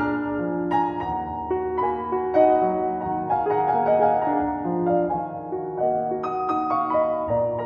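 Background piano music: a melody of changing notes over held chords.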